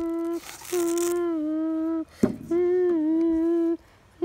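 A person humming three long, steady notes at much the same pitch, each dipping slightly partway through. A short rustle about half a second in and a sharp click about two seconds in fall between the notes.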